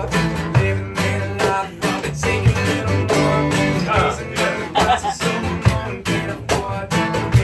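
Live guitar music, with chords strummed in sharp, repeated strokes.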